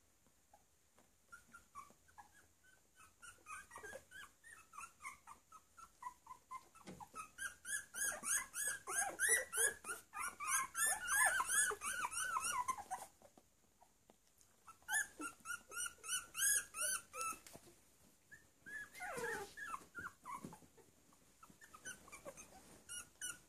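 A litter of 12-day-old puppies whimpering and squeaking: many short, high cries that rise and fall, a few at a time at first, then a dense chorus in the middle, another burst a little later, and one longer falling cry near the end.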